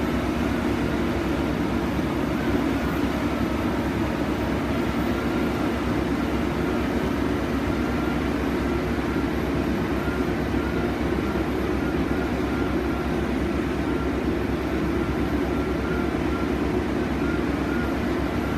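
Soilmec SR-series rotary drilling rig running steadily, a dense even machine noise with a faint wavering whine above it.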